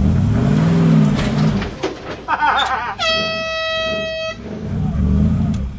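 Willys Wagon engine revving under load, its pitch rising and falling, then a single steady air-horn blast lasting about a second and a half, after which the engine is heard again.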